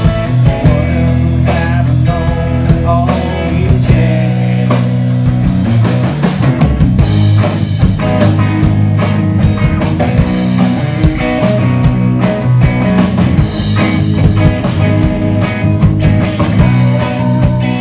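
Live rock band playing loud: electric guitars over a steady drum beat.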